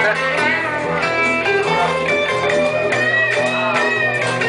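Two guitars playing live: a strummed rhythm guitar under a lead electric guitar line whose notes bend up and down in pitch.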